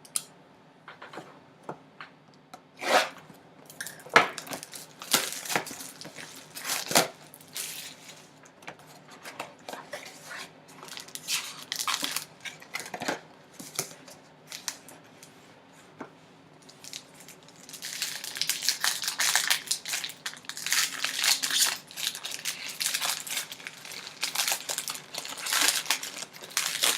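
A sealed trading card box and its plastic wrapping being torn open by hand. Scattered sharp tears and snaps come first, then steady crinkling of plastic wrap through the last ten seconds or so.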